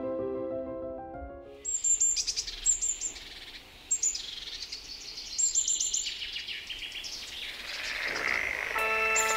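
Songbirds singing in repeated short phrases of high chirps and trills. Soft music fades out at the start and comes back in near the end.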